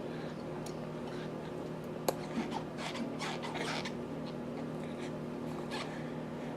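A baby making short, breathy, cough-like huffs, a few in a row midway and another near the end, over a steady low hum; there is a single sharp click about two seconds in.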